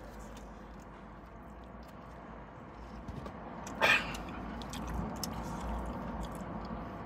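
A man chewing a mouthful of burrito with his mouth closed: soft, wet chewing and small mouth clicks over a low steady hum, with one short vocal noise about four seconds in.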